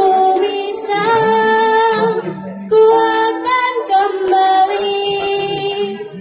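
A teenage girl singing an Indonesian pop ballad solo through a PA system over instrumental accompaniment: two sung phrases with a short breath between them about two and a half seconds in.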